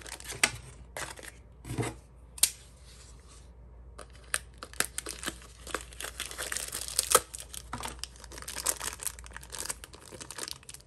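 Thin plastic packaging bags of Beyblade parts crinkling and rustling as they are handled, in short irregular crackles, busier from about four seconds in.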